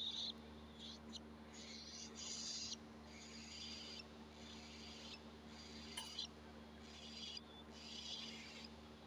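Cockatiel chick's raspy, hissing begging calls during feeding, repeated about once a second, over a faint steady hum.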